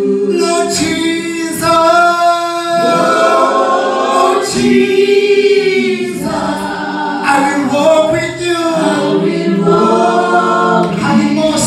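Church choir singing gospel a cappella into microphones, men's and women's voices together, holding long notes and gliding between them.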